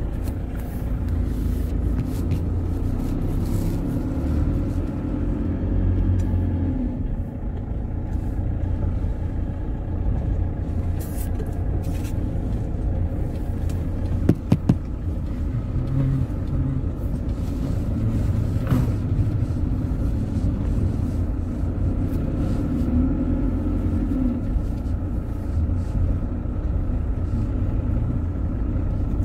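Steady low rumble of a car's engine and tyres, heard from inside the cabin while driving slowly over a rough, broken dirt road. A quick run of three sharp knocks comes about halfway through.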